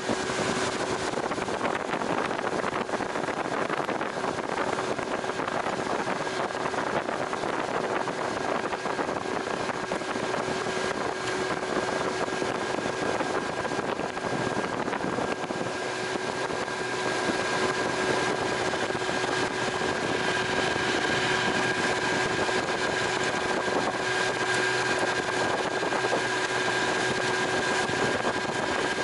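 Jon boat's motor running steadily under way, a steady whine over the rush of wind and water, getting a little louder a bit past halfway.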